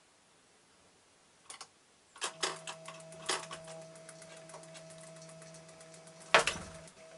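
A few clicks, then about two seconds in the stepping motor of a handmade Arduino-controlled bird feeder starts and keeps running with a steady hum, dispensing food, over many irregular small clicks. A loud knock comes near the end.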